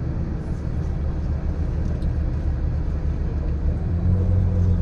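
Engine and road noise heard from inside a moving tour vehicle: a steady low rumble, joined by a steady low engine hum about four seconds in.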